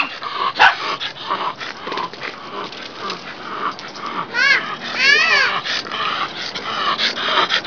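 Dog whining and yipping, with two high wavering cries in the second half among shorter sounds.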